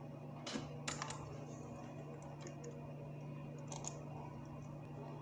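A few faint, scattered clicks of a computer keyboard over a steady low electrical hum.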